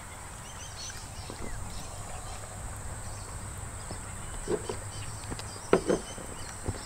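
Outdoor ambience: small birds chirping over a steady high whine, with a few short, louder animal calls about four and a half and six seconds in.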